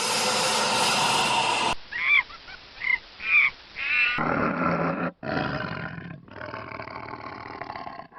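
Animal calls in a string of abruptly cut short clips. The loudest call comes first, followed by four short, high, arching chirps, then further animal sounds.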